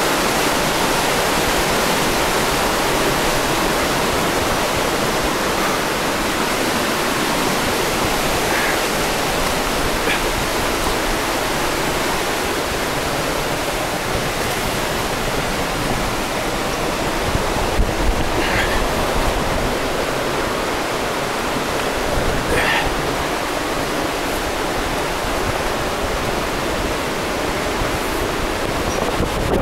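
Fast-flowing forest stream rushing steadily under a log crossing, a constant full hiss of white water, with a few faint brief high chirps.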